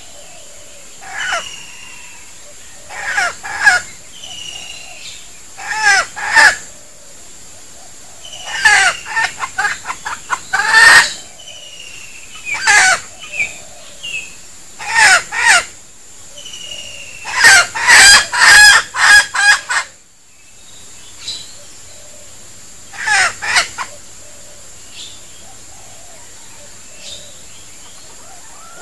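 Red junglefowl rooster kept as a decoy, giving its lure call: short, clipped clucks and crows in bursts of two to a dozen quick notes, busiest in the middle and dying away in the last few seconds.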